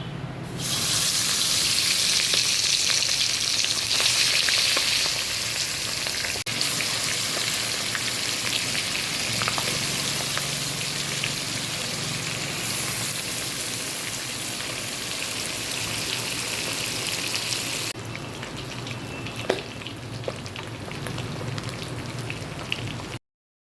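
Pabda fish frying in hot oil: a steady loud sizzle that comes on suddenly about half a second in and drops to a quieter sizzle about 18 seconds in.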